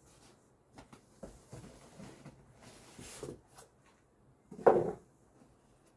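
Plastic parts of an air cooler being handled: scattered light clicks and rustling, with one loud knock a little before the end.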